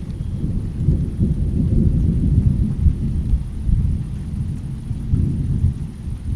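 Thunder rumbling low and long during a rainstorm. It swells about a second in and again near five seconds.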